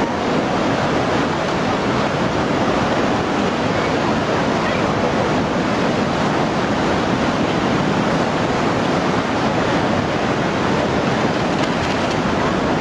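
Tsunami floodwater surging through a street: a loud, steady rush of churning water.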